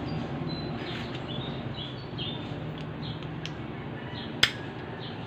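Steady low background hum with scattered faint high chirps, and one sharp click about four seconds in as a pair of pliers is handled.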